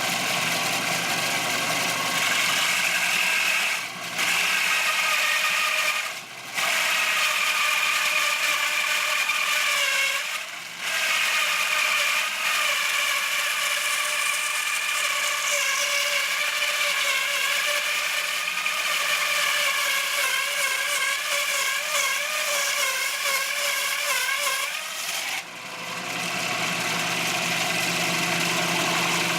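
Shop-built band saw, driven by a 1/3 HP washing-machine motor, running and resawing a board: a steady whine that wavers in pitch, dips briefly about four times, and settles to a lower, steadier hum about four seconds before the end.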